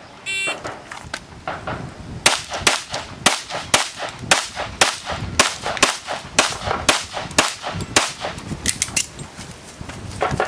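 A shot timer beeps once about half a second in as the start signal. Then comes a fast string of about twenty gunshots, two to three a second, from about two seconds in to about nine seconds in, as a competition shooter engages targets on a multi-gun stage.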